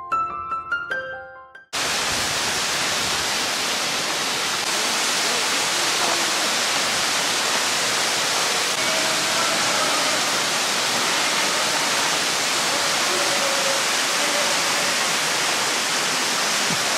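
Piano background music for the first second or two, cut off suddenly by the steady rushing of a waterfall pouring into a pool.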